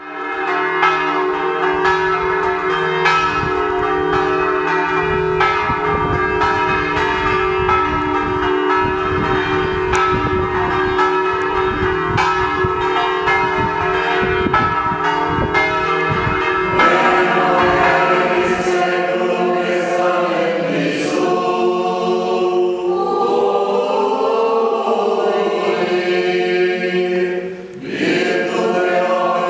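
Church bells ringing, with strike after strike over a steady hum. About two-thirds of the way through the bells give way to voices singing a Latin vespers chant, with a short break near the end.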